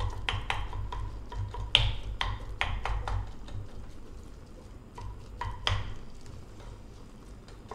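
A bundle of wooden disposable chopsticks stirring crumbled firm tofu in a stainless steel pot, knocking against the pot so it rings briefly. The knocks come irregularly, thick in the first three seconds and again around five seconds, then thin out, over a low steady hum.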